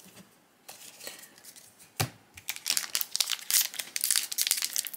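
Foil wrapper of a trading-card booster pack crinkling and crackling as it is handled and torn open, getting denser and louder over the last three seconds. A single sharp knock comes about two seconds in.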